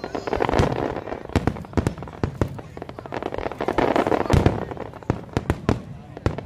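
Aerial fireworks bursting in quick, irregular succession: many sharp bangs over a dense crackle that swells twice.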